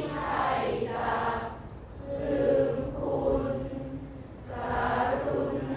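A class of students reading a Thai klon suphap poem aloud together in the sung, melodic reading style, drawing out the syllables as a chant; three long phrases with short breaths between.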